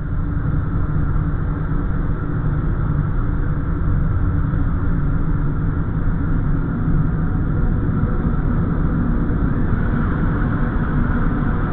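A loud, steady low rumble with a faint hum running through it.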